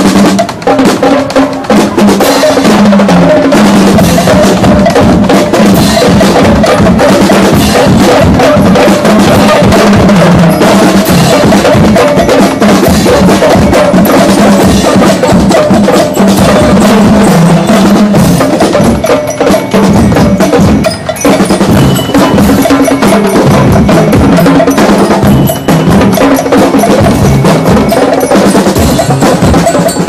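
A marching drumline playing tenor drums (multi-tom quads) with bass drum: a loud, fast, continuous drum cadence of tuned tom strokes.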